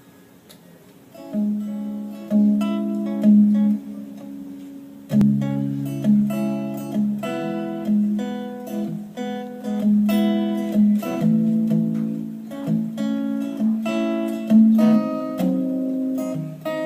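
Instrumental intro of a pop song, played on acoustic guitar: quiet at first, with notes coming in about a second in and the playing growing fuller with lower notes from about five seconds in.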